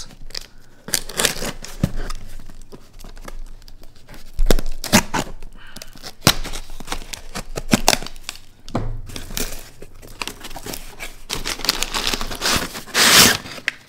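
A Chris Reeve Umnumzaan folding knife slits the packing tape along the seams of a cardboard box, with tearing, scraping and small knocks as the box is handled and its flaps are opened. Near the end comes a loud rustle of crumpled kraft packing paper being grabbed.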